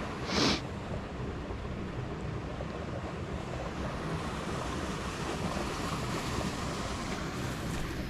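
Steady outdoor wind, rushing and buffeting on the microphone, with a brief breathy hiss about half a second in.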